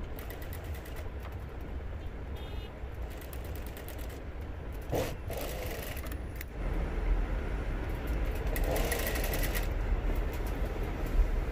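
Industrial lockstitch sewing machine running as it stitches cloth, a steady motor hum with light clicks, growing a little louder over the second half.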